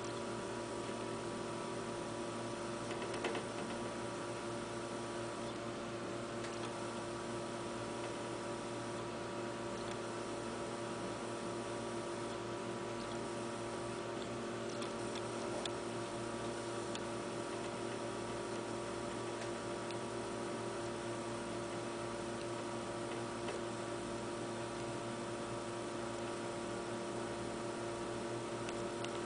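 Steady electrical hum made of several constant tones over a faint hiss, with a faint click or two.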